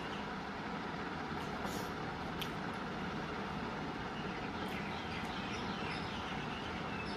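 Steady background rumble with birds chirping in short calls, mostly around five seconds in, and a couple of faint clicks about two seconds in.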